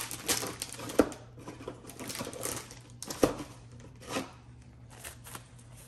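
Gloves being pulled off and changed: rustling and crinkling with sharp snaps, the loudest about a second in and again just after three seconds.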